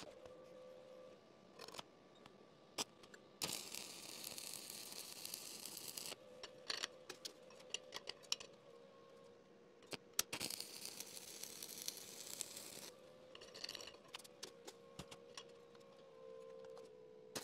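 Stick welding with a 1/8-inch 7018 rod at 120 amps: the arc's steady crackle in two stretches, starting about three and a half seconds in and again around ten seconds. Between and after them come sharp taps of a chipping hammer knocking slag off the bead.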